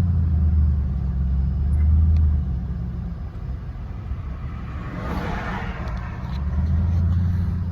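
Engine and road rumble of a vehicle being driven along a back road. The rumble eases off about two and a half seconds in and builds again near the end, with a brief rush of noise about five seconds in.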